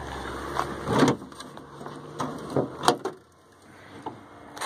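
A handful of sharp knocks and thumps spread over a few seconds, over a low steady hum that drops away about three seconds in.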